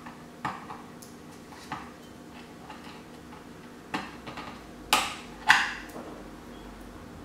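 Small hard plastic clicks and taps as an SD card is tried in the slot of a USB combo card reader without going in. A few light clicks, then three sharper ones from about four seconds in, the last two the loudest.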